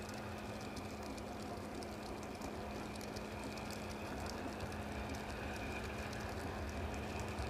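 Southern Railway Schools class 4-4-0 steam locomotive No. 30926 'Repton' approaching at a distance, heard as a steady hiss and low rumble that grows louder in the second half.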